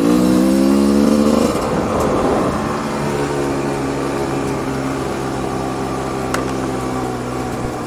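Dirt bike engine heard from the rider's helmet camera, pulling up in pitch under throttle for the first second or so, then after a brief break around two seconds settling into a steady pitch while cruising.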